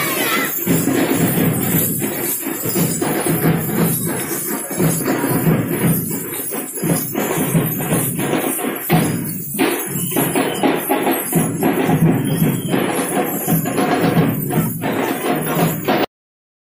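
Dhol-tasha ensemble drumming: barrel drums and tasha snare drums beating a fast, dense rhythm that cuts off suddenly near the end.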